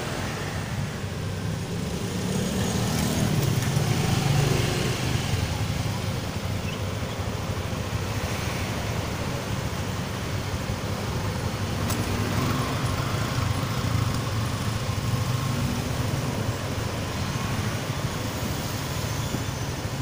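Motorcycle riding in city traffic, heard through a helmet headset microphone: a steady low wind rumble over the bike's engine and passing cars.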